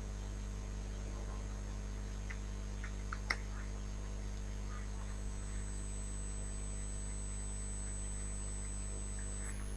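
Steady electrical mains hum with background hiss on a microphone recording. A few faint clicks sound over it about two to three seconds in, and a faint high whine comes in about halfway.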